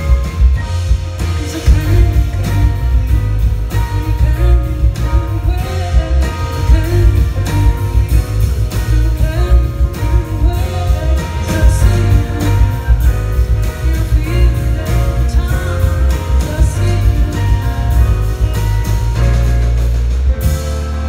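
Live band playing: a woman singing over guitars, drums and keyboard. Near the end the drums stop and the band holds a chord.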